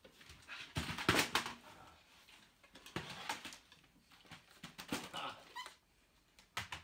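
Knocks and scuffs from a wooden chair being moved and handled on a carpeted floor, in several clusters, the loudest about a second in, with a few short squeaks.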